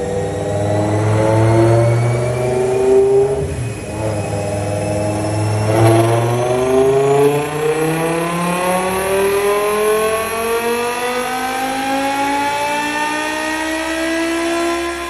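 BMW E60 M5's V10 engine accelerating hard: the note climbs, drops briefly about three to four seconds in as it shifts up, then climbs steadily through a long pull in the next gear.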